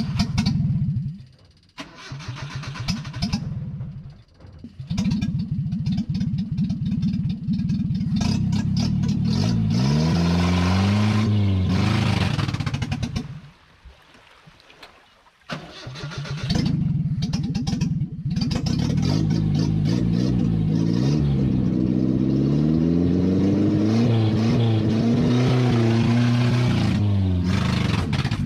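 1979 Chevrolet LUV pickup's four-cylinder engine running and being revved up and down. It drops out briefly near the start, stops for about two seconds around the middle, then starts again and keeps running with more revving.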